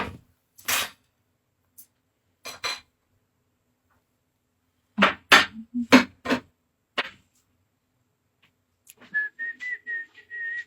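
Several short, sharp clacks, loudest in a cluster around the middle. Near the end a steady high-pitched whistle starts up.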